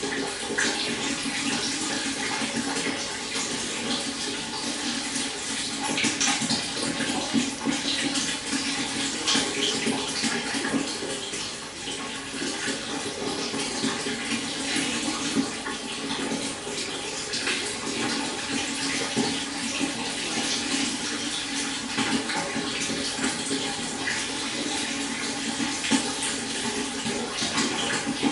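Stream water flowing steadily, with small irregular splashes and gurgles over a constant rush.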